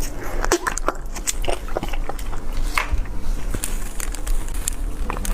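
Close-miked eating sounds: a person chewing a dessert, with many irregular wet mouth clicks.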